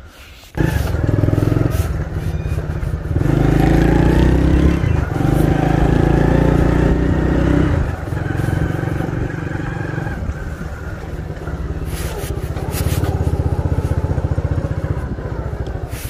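Motorcycle engine running while riding, cutting in abruptly about half a second in and loudest over the middle few seconds.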